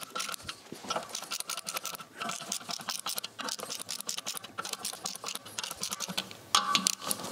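Ratchet wrench clicking rapidly as the bolts of a clutch pressure plate are tightened down onto the flywheel. About six and a half seconds in, a louder squeaky tone from the pressure plate's coil springs compressing under the bolts joins in.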